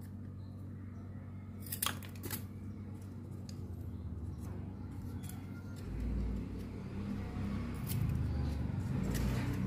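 A couple of sharp clicks about two seconds in, then handling bumps and rustling from about six seconds on, over a steady low hum.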